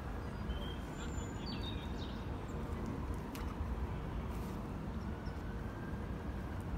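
Outdoor ambience at a pond: a steady low rumble, with a few faint, short, high bird chirps about a second in.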